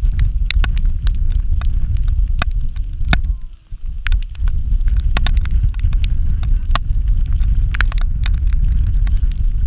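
Wind buffeting the camera microphone: a heavy, fluttering low rumble with scattered sharp crackles, dropping off briefly about three and a half seconds in.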